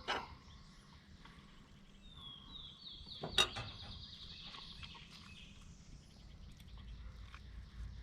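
A songbird sings a trill of quick, even notes over quiet outdoor ambience. There is a small click at the start, and a sharper, louder click about three and a half seconds in.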